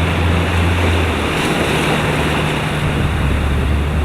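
Wind rushing over the microphone and water splashing as a boat runs fast through waves in strong wind, with a steady low motor hum beneath.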